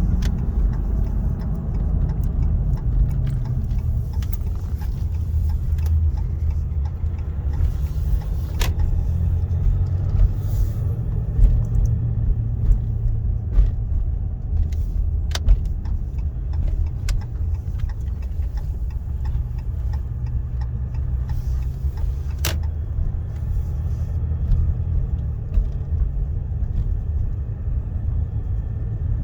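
Inside the cab of a 2015 Ram 1500 EcoDiesel pickup on the move: a steady low rumble of engine and road, with a few sharp clicks or knocks.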